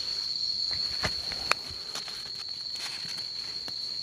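Insects in the field making a steady, high-pitched drone, with a few sharp clicks about a second and a second and a half in.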